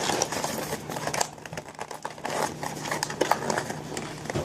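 Packaging being handled: crinkling and rustling with a run of small clicks and taps as the contents of a box are pulled out.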